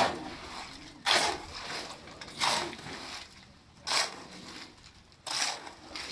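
Steel shovel scraping and scooping through a heap of wet concrete mix of cement, sand and gravel on a concrete floor, in regular wet, gritty strokes about one every second and a half.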